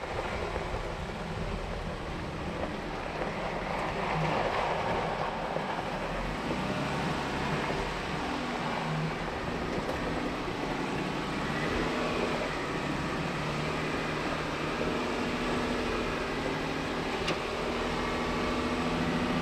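A vehicle driving slowly along a dirt trail: steady engine running with tyre and road noise, its pitch drifting slightly as it goes.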